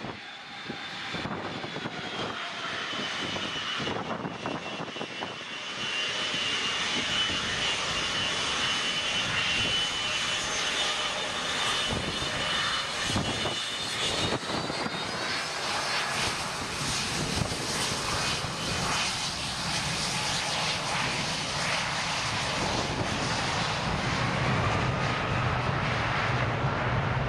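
Boeing 757-200's twin jet engines spooling up and running at takeoff thrust on the takeoff roll. The level jumps about six seconds in to a loud, steady rush with a high whine that climbs in pitch about halfway through, and a deeper rumble grows near the end as the airliner accelerates down the runway.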